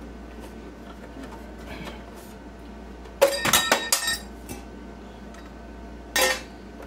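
Sheet-metal parts of a slot machine's coin hopper clinking and rattling against each other as they are taken apart: a burst of sharp clinks with a metallic ring about three seconds in, and a shorter clatter near the end.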